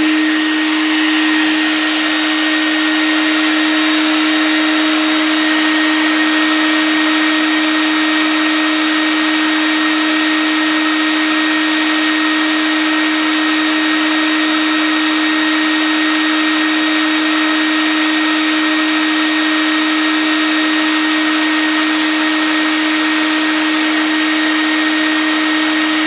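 Homemade bee vacuum running steadily: a constant motor drone with a thin high whine as it sucks honey bees off the comb.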